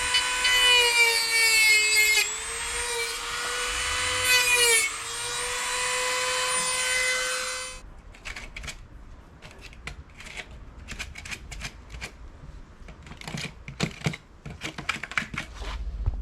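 Dremel rotary tool cutting the fibreglass skin of a surfboard around a ding: a high whine whose pitch dips each time the bit bites in, cutting off about eight seconds in. After it, irregular short scraping strokes by hand.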